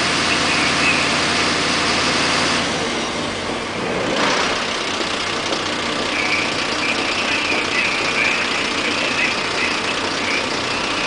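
A large truck engine running steadily, its sound changing about three to four seconds in.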